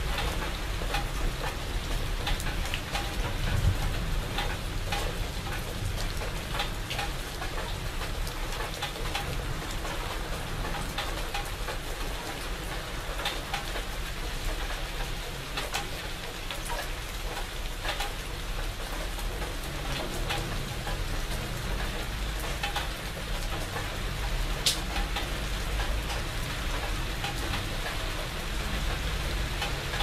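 Steady rain falling on leafy shrubs, with single drops landing as sharp clicks throughout over an even hiss, and a low rumble underneath.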